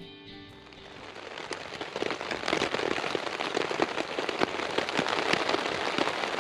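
Rain pattering on a tent, a dense spatter of drops that grows louder over the first two seconds and then holds steady.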